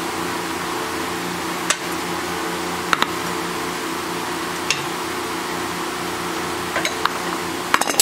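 A few sharp, scattered metallic clinks of a hand wrench and hex key against the rusted fuel tank drain plug, over a steady background hum.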